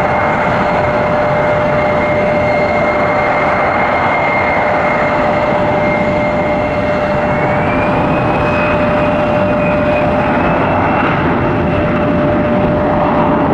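Jet airliner's turbofan engines running, a steady loud rush with a constant whine. A higher whine rises slightly in pitch about seven seconds in.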